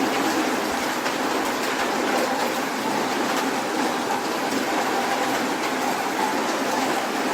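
Soft rain falling in a city: a steady hiss of rainfall with many small drop ticks scattered through it.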